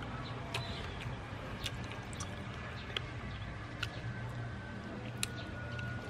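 Scattered light clicks and crunches of eating crispy fried squid with bamboo chopsticks, over a steady low hum.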